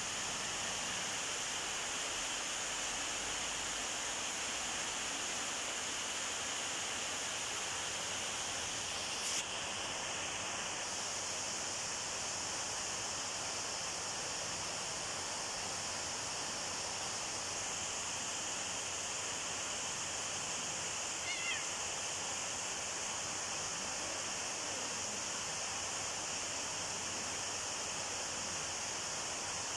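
Steady high hiss of background noise with a constant high ringing, broken by a single click about nine seconds in and a faint, brief squeak about twenty-one seconds in.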